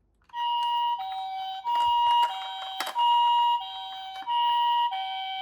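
Toy ambulance's electronic siren sounding the two-tone hi-lo "pee-poh" pattern, a higher and a lower note alternating about every two-thirds of a second. A few light knocks come a couple of seconds in.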